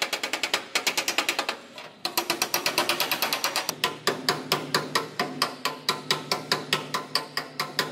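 Rapid, evenly spaced hammer blows on the steel of a pickup bed's wheelhouse and mounting structure, several strikes a second, with a brief pause a little under two seconds in.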